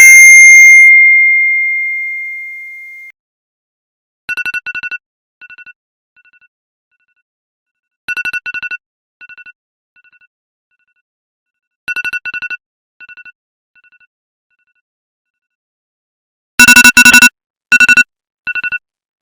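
Smartphone notification tones: a loud ding at the start that rings out over about three seconds, then a beeping electronic tone with fading echoes, repeated three times about four seconds apart. Near the end the same beeps return heavily clipped and bass-boosted, distorted and much louder.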